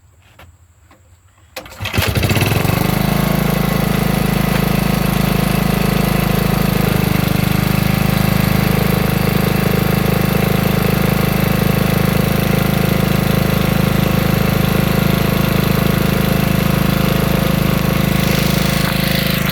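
Small single-cylinder engine of a portable generator catching and starting about two seconds in, then running steadily, after months of sitting unused.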